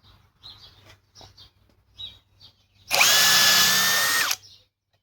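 Cordless hammer drill set to speed 2 running for about a second and a half, backing a screw out, then stopping. A few faint handling clicks come before it.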